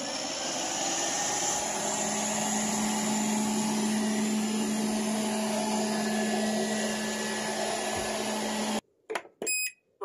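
SUPRA VCS-4093 robot vacuum cleaner running: a steady whir of its suction motor with a low hum. It cuts off suddenly near the end, followed by a short electronic beep.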